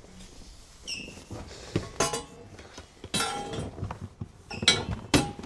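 Metal tools and bike parts clinking and knocking on a workbench: a string of irregular sharp clinks, several with a brief ring, the loudest near the end.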